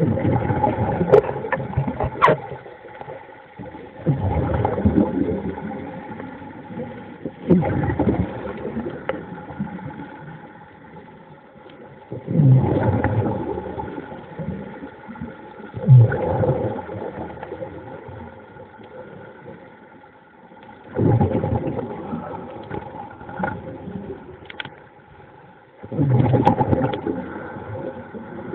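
Muffled underwater sound of a diver moving: surges of rushing water and bubble noise every four or five seconds, each starting suddenly and fading, over a faint steady hum.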